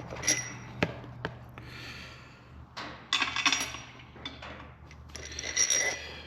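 Steel main bolts clinking and tapping as they are handled and set into the main girdle of a Ford 3.5 EcoBoost engine block: a few sharp clicks, then several short ringing metal clinks.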